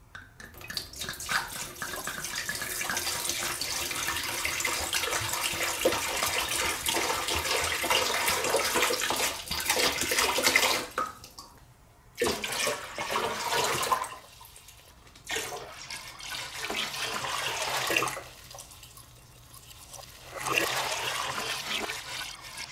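Water poured into an empty glass aquarium tank, first from two glass bottles at once in one long steady pour of about eleven seconds. After a short pause it is poured from a white container in shorter pours with brief breaks, splashing into the water already in the tank.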